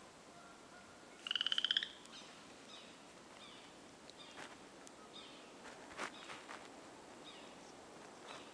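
A frog calling: one loud, rapid pulsed trill lasting under a second, about a second in, then several fainter, shorter calls. A single sharp click about six seconds in.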